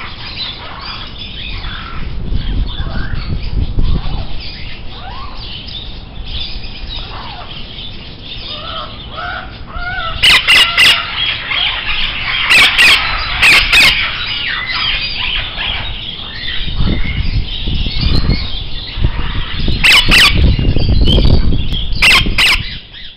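Many birds chirping and squawking at once, with several sharp, very loud clicks in the middle and near the end and stretches of low rumbling.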